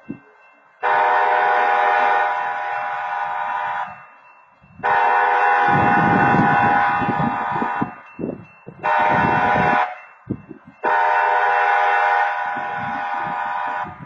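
BNSF freight locomotive air horn sounding the grade-crossing signal: two long blasts, one short, then a long one. Each blast is a steady multi-note chord.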